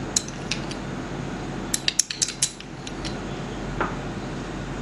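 Spoon clinking against a glass mixing bowl: a few light clicks, then a quick cluster of sharp clinks about two seconds in.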